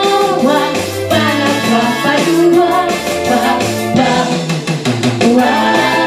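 A song performed with a singing voice over an instrumental accompaniment with a steady drum beat.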